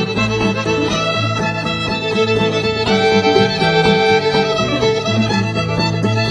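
Old-time string band playing a fiddle tune, fiddle leading over guitar and bass.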